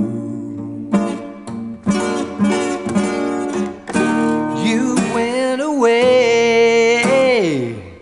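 Background music: a slow song playing in a gap between sung lines. A long held note wavers, then slides down near the end.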